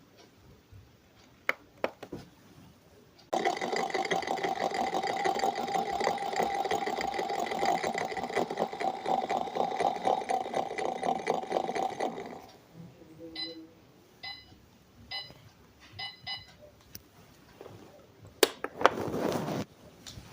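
Washing machine control panel's buzzer and electronics: a loud buzzing with a rapid pulse for about nine seconds, then a run of short electronic beeps as buttons are pressed, with clicks and a brief noisy burst near the end.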